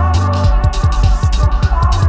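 Background music: an electronic track with a steady bass and a quick run of low drum hits that each drop in pitch, starting about half a second in.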